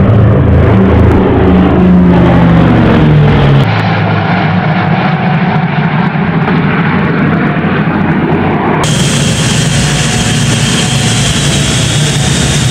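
The B-29 Superfortress's four Wright R-3350 radial piston engines and propellers drone as the bomber passes low overhead, their pitch falling as it goes by. The sound then cuts to other flyby takes, and near the end to the brighter, steady engine noise heard inside the cockpit.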